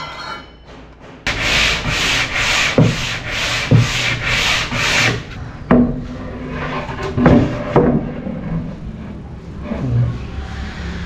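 A circular saw winds down and goes quiet. Then come about four seconds of rhythmic back-and-forth rubbing strokes on wood, about two a second, like hand sanding. After that, several knocks of a laminated plywood panel being handled and set down inside the cabinet carcass.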